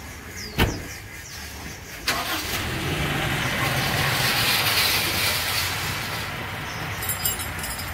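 A single thud, then about two seconds in the Toyota Zace's petrol engine is started and keeps running, easing slightly after a few seconds. This is its first start after fresh oil and a new oil filter.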